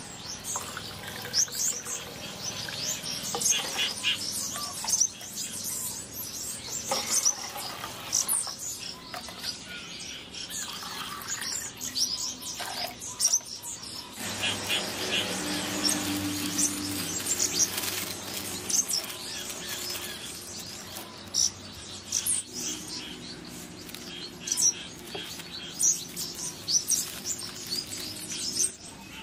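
Small birds chirping repeatedly in short, high calls.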